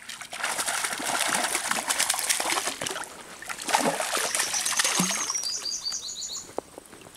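A hooked fish thrashing and splashing at the water's surface as it is pulled in to the bank, in two spells with a short lull between them. A quick run of short, high chirps sounds during the second spell.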